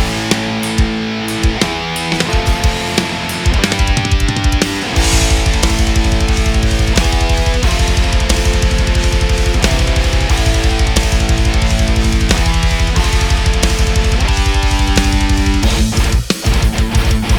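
Background heavy metal music: guitar riffs over a drum kit, with a fast, steady kick-drum pattern coming in about five seconds in and breaking off near the end.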